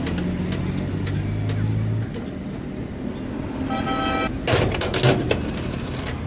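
Road traffic: a steady engine hum that drops away about two seconds in, a short horn toot past the middle, then a brief loud clatter.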